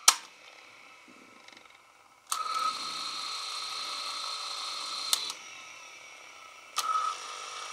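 Sony WM-10 Walkman cassette transport: a button click, then about two seconds in the tape motor starts with a steady high whine. There is another click about five seconds in, after which it runs quieter, and the whine comes back up near the end. The motor noise is rather loud, and it has grown louder with the machine's age even though the unit is freshly refurbished and oiled.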